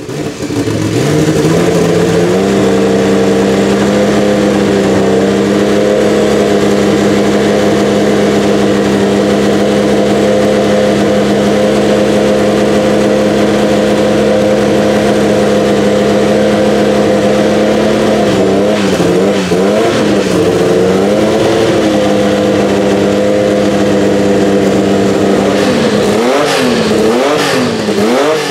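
Porsche 961's 2.9-litre twin-turbo flat-six fires up, its pitch climbing over the first two seconds to a steady fast idle. The revs waver around the middle, then near the end it is blipped repeatedly, rising and falling about once a second.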